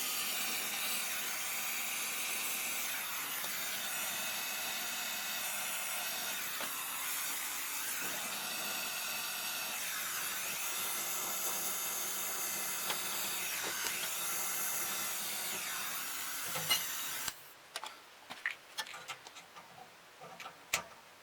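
Gas brazing torch flame hissing steadily while refrigerant tubing is brazed, the hiss shifting slightly in tone as the flame is worked. It cuts off abruptly near the end, leaving a few light clicks and knocks of tools and tubing.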